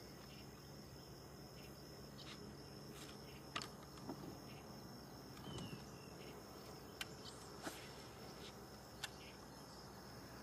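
Faint, steady high-pitched insect chorus, with a few sharp clicks scattered through it, the loudest about three and a half seconds in.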